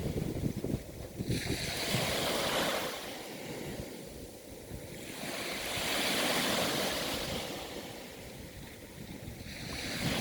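Sea waves washing in, their rushing sound swelling and fading about every four seconds.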